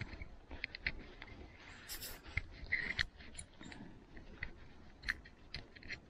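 Small metal and plastic parts of a Daiwa Goldcast 508RL spincast reel being worked back into the reel body by hand while the crosswind pin is fitted. There are irregular small clicks and taps throughout, with a brief scraping rustle about two seconds in.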